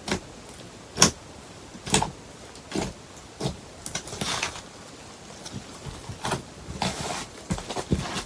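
Slime being pressed and squished by hand, giving short, sharp squelching pops about once a second at first, then coming faster and more irregularly in the second half.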